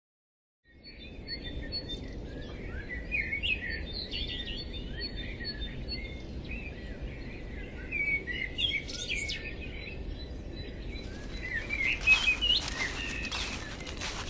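Several small songbirds chirping and singing in short phrases over a steady low rumble. From about three seconds before the end, a run of short crackles and rustles joins them.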